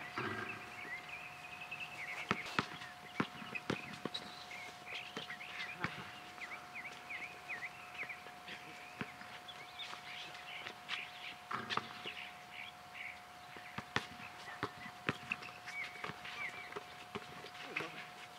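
A basketball bouncing on an outdoor court now and then, with players' footsteps: sharp single knocks at irregular times. Short high chirps come and go throughout, over a steady faint whine.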